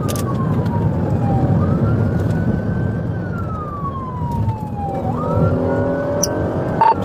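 Police siren on a slow wail, sweeping up and gliding down about every three and a half seconds, over steady engine and road noise inside a patrol car in a high-speed pursuit. From about five seconds in, a steady chord of several tones joins the wail, and a short click comes just before the end.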